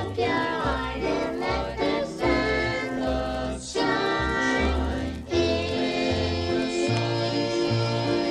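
Young children singing a gospel song together over instrumental accompaniment, with a bass line stepping through notes.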